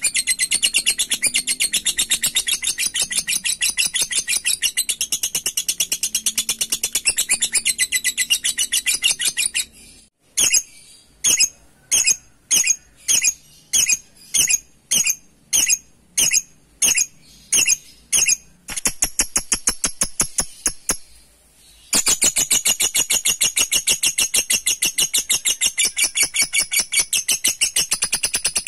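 Lovebird ngekek: a long, very fast, high chattering trill, broken about ten seconds in by a run of around sixteen sharp single calls at about two a second, then a softer chatter, before the fast loud chatter resumes about 22 seconds in.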